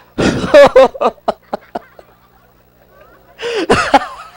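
A person's voice: a loud vocal outburst that trails off into a few short, fading laughing breaths, then another outburst about three and a half seconds in.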